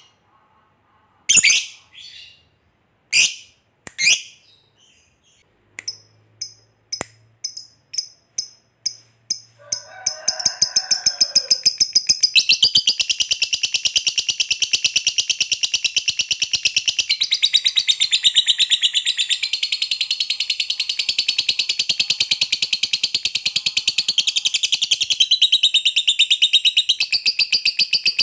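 Lovebird calling its long 'ngekek' trill. A few separate sharp, high chirps come first, then chirps in quicker and quicker succession. About twelve seconds in these run together into an unbroken, very rapid high-pitched chatter.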